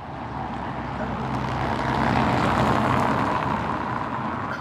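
A vehicle passing by, its engine noise swelling to a peak about two seconds in and then fading away.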